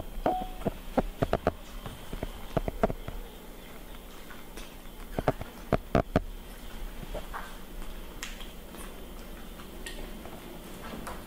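Irregular soft clicks and taps as a baby monkey sucks from a hand-held feeding bottle and shifts about on a wooden tabletop, over a steady low hum.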